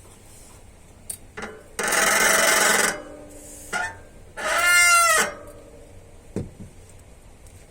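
Shimano M395 hydraulic disc brake on an RT56 rotor squealing as the brake is applied, twice: first a harsh, noisy squeal of about a second starting about two seconds in, then a shorter squeal with a clear, bending pitch near five seconds. The owner puts the noise down to dirty, oil-contaminated pads that are not gripping the rotor properly.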